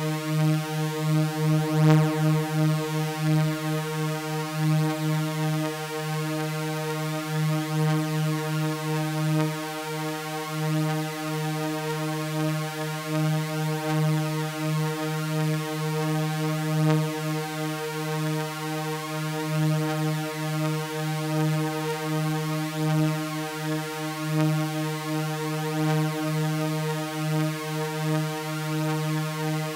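Synthesizer drone of layered sawtooth waves holding one steady low chord, with a gentle, uneven pulsing in its tone.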